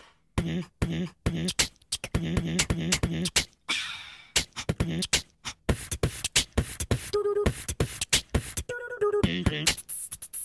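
Vocal beatboxing breakdown in a sped-up pop song: quick mouth-made clicks and percussive beats with short hummed notes. The full backing music drops out at the start.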